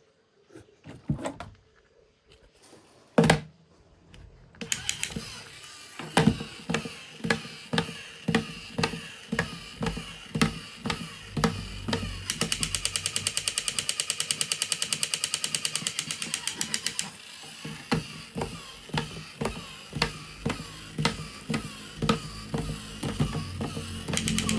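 A few scattered knocks and clicks, one of them loud, then background music with a steady beat of about two thumps a second, with a fast rattling rhythm in the middle.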